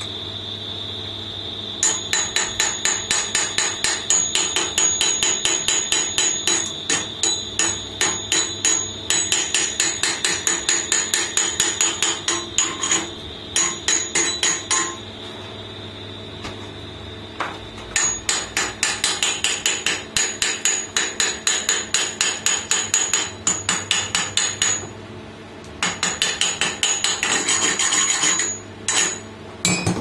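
A hand hammer striking a bent steel bike-frame tube in rapid blows, about three a second, each with a bright metallic ring. The blows come in several runs with short pauses between them.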